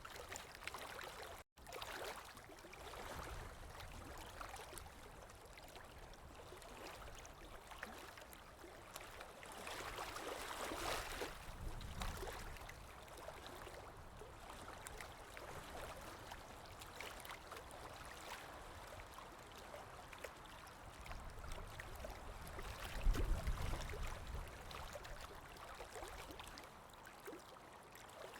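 Running water trickling and gurgling like a small stream, with irregular small surges. It cuts out for an instant about a second and a half in, and swells with a louder low rumble late on.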